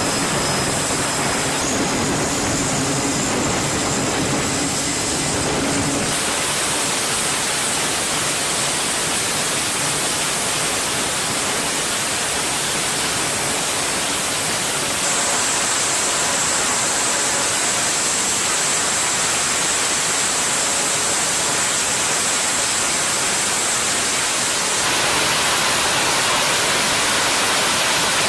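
Twin turboprop engines of a Navy E-2 Hawkeye running on the deck with propellers turning: a steady, loud rush of noise with a high thin whine over it. The tone shifts a few times.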